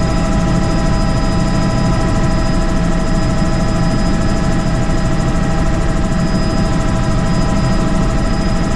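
Helicopter in flight, running steadily: a loud, fluttering low drone from the rotors with several steady high tones over it.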